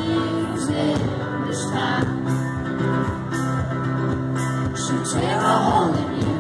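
Live folk-rock band playing: strummed acoustic guitar and a steady drum beat under a man's lead vocal, heard from the crowd.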